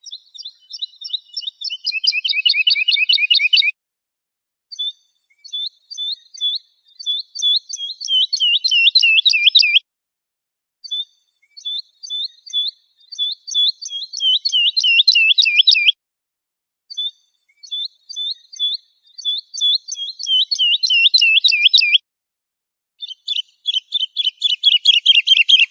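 Woodlark, the Moroccan 'wolwal' lark, singing: five phrases about a second apart. Each begins with a few spaced high notes and speeds up into a fast run of repeated falling notes.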